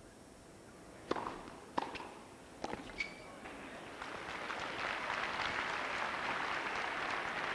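Tennis ball struck back and forth in a rally, a few sharp hits, with a short high beep after the last one. From about four seconds in the crowd applauds and cheers the point.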